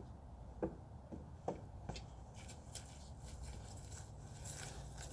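Faint scattered knocks and light rustling over a low steady rumble.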